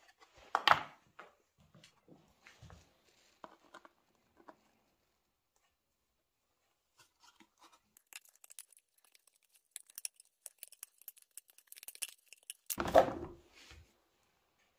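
Aviation tin snips cutting a strip from a black plastic engine cooling shroud: a run of many quick, crisp snips, with a louder knock about half a second in and a louder, noisier burst near the end.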